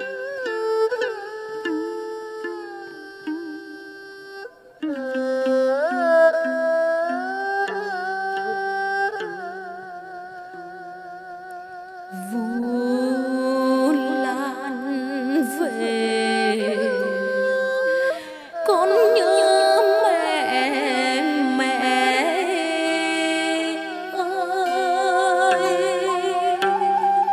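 A woman singing chèo, Vietnamese traditional folk opera, in a melismatic line with wide vibrato over an instrumental accompaniment; the accompaniment carries the melody alone for the first stretch, and the voice comes in strongly about twelve seconds in.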